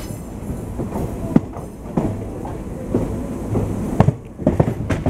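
A moving passenger train heard from an open coach doorway: a steady rumble of wheels on rail, with sharp, unevenly spaced clacks as the wheels cross rail joints and points.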